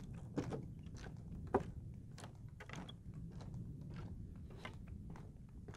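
Footsteps on a wooden boardwalk, sharp knocks about two a second, over a steady low rumble.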